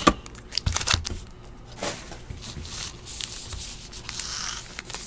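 Wrappers of trading card packs rustling and rubbing against each other as the packs are handled and straightened into a stack, with a few light taps.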